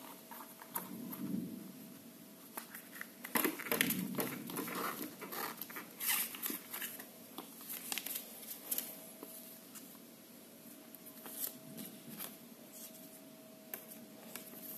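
Small cardboard box and paper instruction leaflet being handled and unfolded: irregular rustling, crinkling and light clicks, busiest in the first half and sparser later. A faint steady hum sits underneath.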